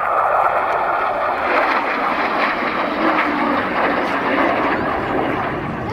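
An F-16 fighter jet flying past, its single jet engine making a loud, steady rushing noise.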